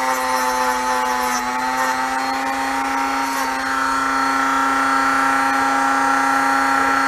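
Corded rotary tool running steadily at high speed, grinding down electrical connectors so they fit; its pitch sags slightly about a second in, then holds.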